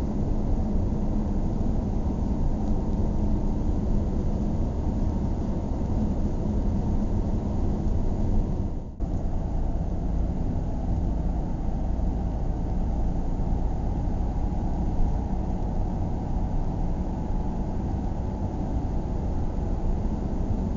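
Car driving steadily, its engine and tyre rumble heard from inside the cabin. The sound drops out for an instant about nine seconds in.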